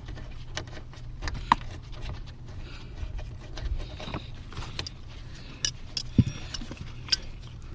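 Scattered small clicks and metallic clinks from a screw and tools being handled while a seatbelt's screws and bolts are put back in, with two sharper clicks about one and a half and six seconds in, over a steady low hum.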